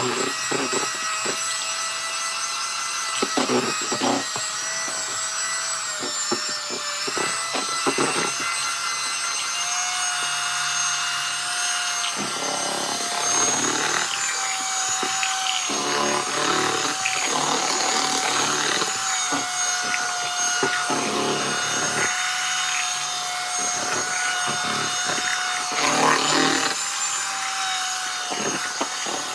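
Electric hand mixer running with a steady motor whine as its beaters work through thick cream in a plastic basin. The pitch of the whine shifts slightly now and then, and rougher stretches of beaters churning and scraping come every few seconds.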